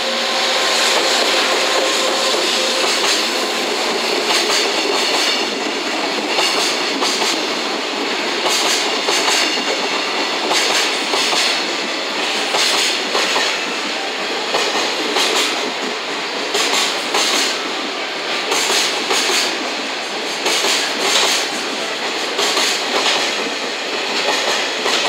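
Container freight train hauled by an EF210 electric locomotive passing: a steady rolling rumble from the container wagons' wheels, with clusters of clickety-clack about every two seconds as each wagon's wheels cross the rail joints.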